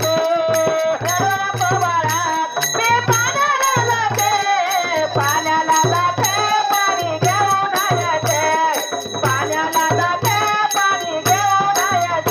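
Marathi devotional folk song (bhajan): a sung melody over a steady beat of low drum strokes and high clinking percussion.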